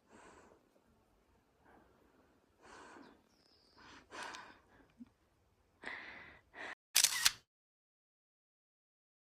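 Tired hiker's heavy breaths and gasps after a steep climb, a few seconds apart. About seven seconds in comes a brief loud rustle on the microphone, and then the sound cuts off to total silence.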